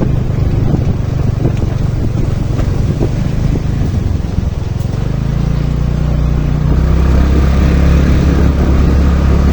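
Motorcycle engine running under way, with wind rushing over the microphone; about halfway through the engine note drops lower and grows steadier and louder.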